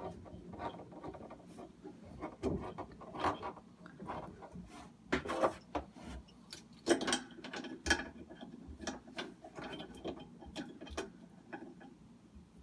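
Adjustable wrench tightening the faucet's supply hose nuts: irregular metal clicks, knocks and scrapes as the jaws are set and the nut turned.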